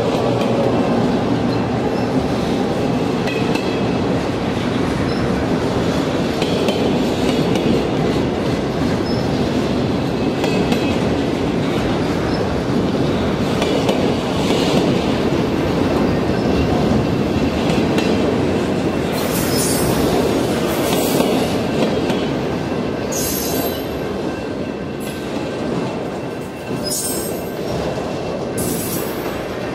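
Freight train of enclosed autorack cars rolling past: a steady noise of steel wheels on the rails, with several short high-pitched wheel squeals in the last third.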